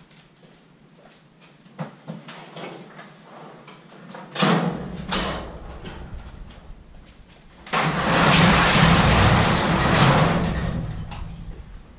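Sectional garage door rolling up along its metal tracks, a loud rumbling rattle for about three seconds that fades as it reaches the top. Two sharp knocks come a few seconds before it.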